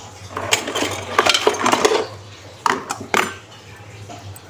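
Plastic basins, a plate and a metal spoon clattering and clinking as dishes are handled and stacked: a run of knocks through the first two seconds, then two sharper clinks around three seconds in.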